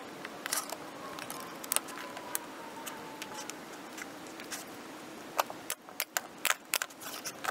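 Light clicks and taps of a mirror plexiglass panel and wooden frame pieces being handled and set together on a workbench, a few scattered at first, then a quicker run of sharp clicks in the last two seconds.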